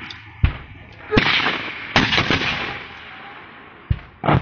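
Mortar fire: about six sharp blasts at uneven intervals, each trailing off in a rolling echo, two of them close together near the middle and two more near the end.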